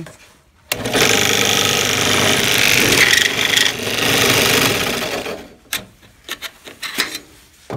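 Drill press bit cutting through aluminum J channel held in a wooden jig: a loud, rough grinding noise that starts suddenly about a second in and lasts about four and a half seconds. After it come a series of sharp clicks and knocks as the channel is handled and shifted along the jig.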